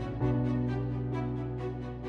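Background music: sustained instrumental chords over a steady, quick pulse, with a new chord coming in about a quarter second in.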